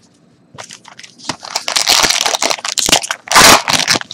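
A foil trading-card pack (2014 Topps Valor football) crinkling in the hands and being torn open, the loudest rip coming about three and a half seconds in.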